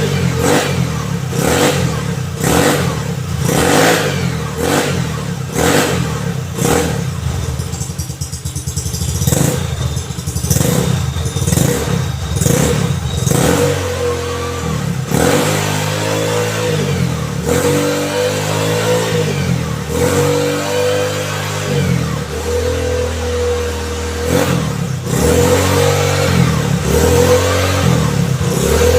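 Yamaha Nouvo scooter engine being revved over and over, its pitch rising and falling with each blip of the throttle.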